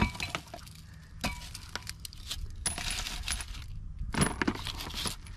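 Several short metallic clinks and knocks of loose steel wheel studs and a hub and rotor being handled and set down on cardboard.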